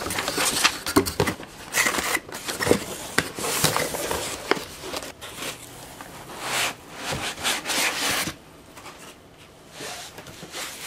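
Paper sheets rustling, then foam packing blocks rubbing and scraping against a cardboard box as they are lifted out. The noise comes in quick irregular bursts and dies down after about eight seconds.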